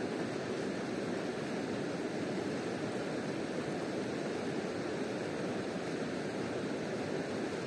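A river running steadily past, a constant rush of flowing water.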